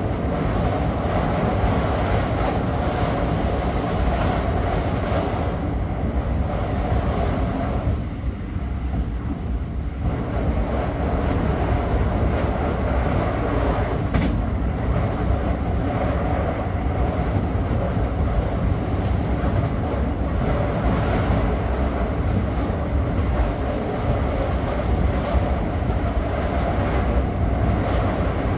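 Passenger train running, heard from inside the carriage: a steady rumble of wheels on the track. The sound thins briefly about a third of the way in, and a single short click comes about halfway.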